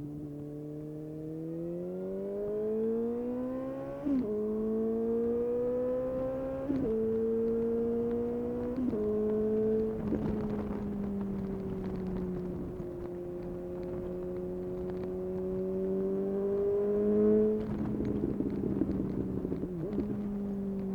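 A 2019 Suzuki GSX-S750's inline-four, through a Yoshimura SQ11 exhaust with no dB killer and a custom decat, accelerates hard and upshifts about four, seven and nine seconds in, the pitch dropping sharply at each shift. It then holds a steady note, revs up again to its loudest point near the end, and drops off with a spatter of crackles on the overrun.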